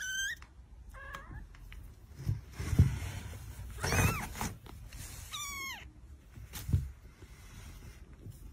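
Kittens mewing: four short, high-pitched mews that fall in pitch, one at the start, another about a second in, and two more around four and five seconds in. A few soft thumps fall between them.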